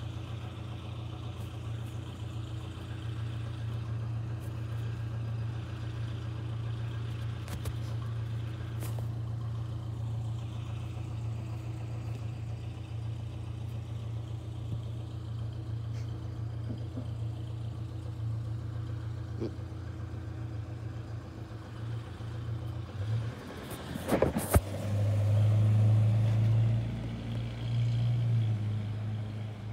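USPS Grumman LLV mail truck engine idling steadily, then a few sharp clunks late on, followed by the engine pulling harder as the truck drives away.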